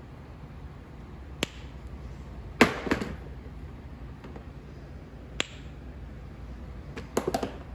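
Plastic fidget snapper toys clicking and knocking as they are handled: single sharp clicks, plus two short bursts of several clicks, the loudest about two and a half seconds in and another near the end.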